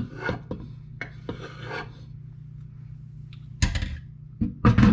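Food being scraped off a wooden cutting board into a stainless steel pot, a run of short rasping strokes, followed near the end by a few loud knocks.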